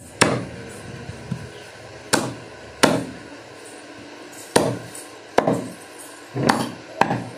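A butcher's cleaver chopping through goat meat and bone: about seven sharp chops at uneven intervals.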